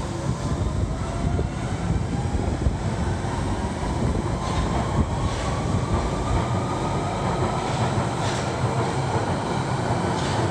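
London Underground Central Line 1992-stock train pulling out of the platform and accelerating: a steady rumble of wheels on rail with a motor whine rising slowly in pitch, and a few sharp clicks as it picks up speed.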